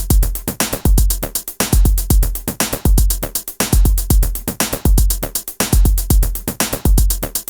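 Background electronic music with a drum-machine beat: a deep kick about once a second under quick, even hi-hat ticks.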